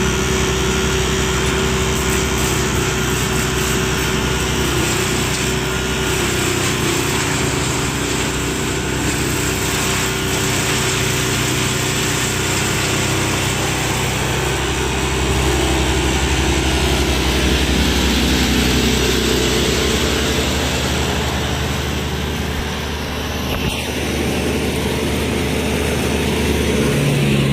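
Diesel engine of a mobile drum wood chipper running steadily under a dense mechanical noise, with a brief dip in level near the end.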